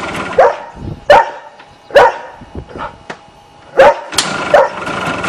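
A dog barking, about six sharp barks: three spaced roughly a second apart, then three in quicker succession from about four seconds in.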